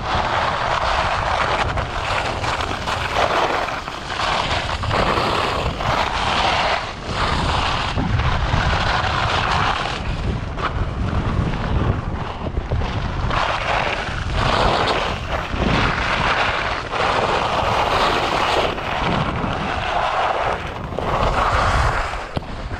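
Wind buffeting the skier's camera microphone with a steady low rumble, while skis scrape over packed snow in swelling hisses that rise and fade every second or two as they carve turns down the piste.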